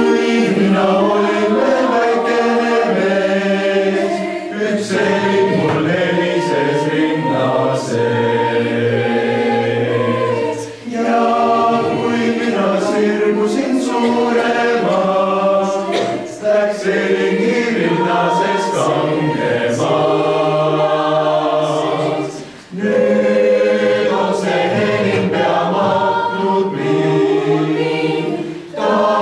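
Mixed choir of teenage boys and girls singing a cappella, with short pauses between phrases, about a third, a half and three quarters of the way through.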